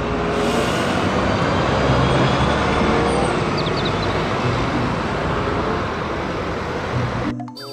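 Double-decker bus driving off along a road, its engine a low steady hum under the hiss of passing traffic. Near the end it cuts off suddenly to music.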